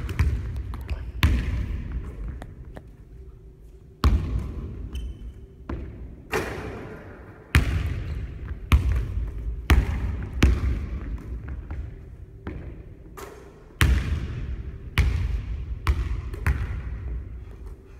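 Basketball bouncing on a hardwood gym floor: a string of sharp thuds at irregular intervals, some in quick runs, each with a fading echo.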